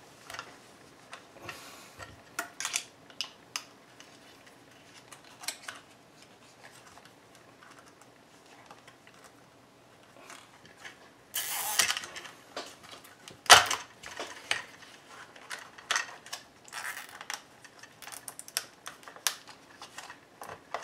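A plastic zip tie being threaded and pulled tight around the plastic earmuff cups, with clicking and knocks as the parts are handled. There is a short rasp a little past halfway, then a sharp knock, and a quick run of ratchet-like clicks as the tie is cinched near the end.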